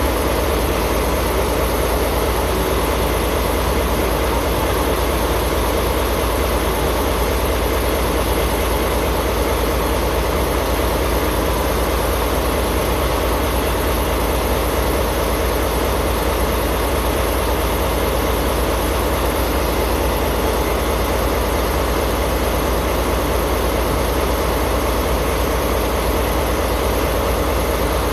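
Diesel locomotive engine idling steadily at close range, a constant low hum with no change in speed.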